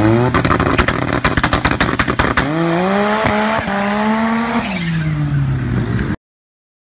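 Drag car launching off the start line: a rapid string of sharp exhaust pops as it pulls away, then the engine revving up in a rising pitch that falls away after about four and a half seconds as the car runs down the strip. The sound cuts off suddenly near the end.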